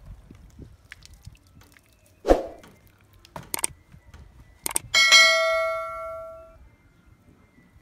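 Subscribe-button animation sound effect: a few sharp mouse clicks, then a bright notification bell ding that rings out for about a second and a half. A single thud comes about two seconds in.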